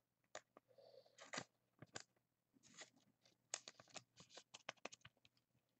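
Near silence with faint, scattered clicks and scrapes of trading cards being handled and slid through the hands, coming more often in the second half.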